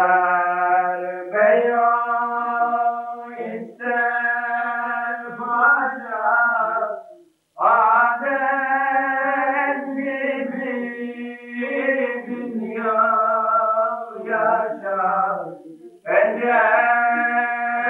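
A man singing a Turkish religious hymn (ilahi) in long, held, wavering melismatic notes without clear words. The phrases are broken by short pauses for breath, one about seven seconds in and one near the end.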